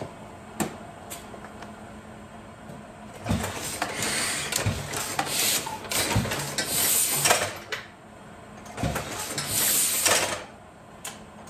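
Heidelberg Windmill automatic platen letterpress running, a 1970s machine. After a couple of light clicks it starts about three seconds in with rhythmic clanking, a knock about every second and a half, and bursts of hiss, easing briefly near the end before a last run of cycles.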